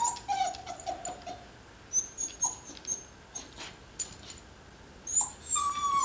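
Beagle puppy whimpering at a door in thin, high whines, waiting for her owner. There is a falling whine at the start, short high peeps in the middle and more whines near the end, with a few sharp clicks of claws scratching at the door.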